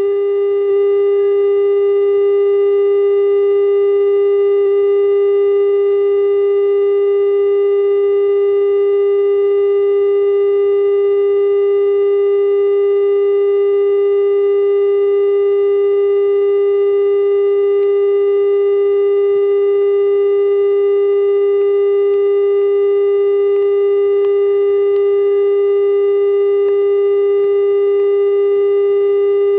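Loud, steady electronic tone from an emergency broadcast, held unbroken at one low pitch with fainter overtones above it.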